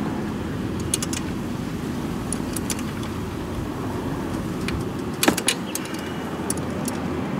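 Steel ring wrench clinking against the valve-adjuster lock nut and rocker arm on a GY6 150cc cylinder head as it is fitted and turned to loosen the nut: a few light metallic clicks, with the loudest cluster about five seconds in. A steady low background rumble runs underneath.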